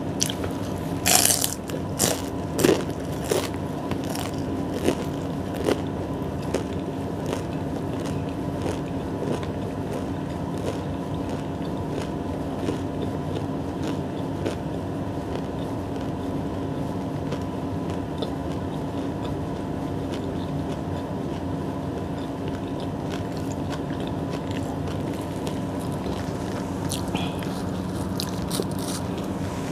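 Close-miked eating of soft bread: sharp, clicky bites and wet chewing in the first few seconds, then quieter chewing over a steady background hum. A few crisp sounds come again near the end as a bread roll is picked up.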